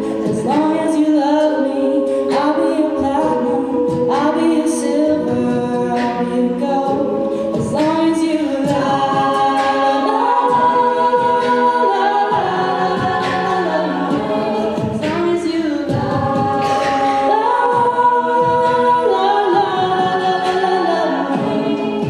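A mixed college a cappella group sings a pop mashup cover in layered harmony. Vocal percussion keeps a regular beat under the held chords.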